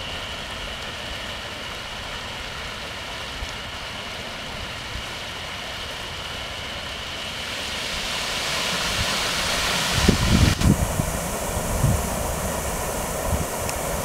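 Fountain jets splashing into a pond: a steady rush of falling water that grows louder about two-thirds of the way through as the tall central spray joins in. A few low rumbling thumps come about ten seconds in and again near the end.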